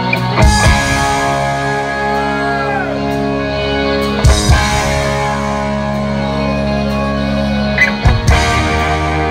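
Live rock band playing: held electric guitar and keyboard chords, broken by loud full-band hits with the drums about half a second in, midway and near the end.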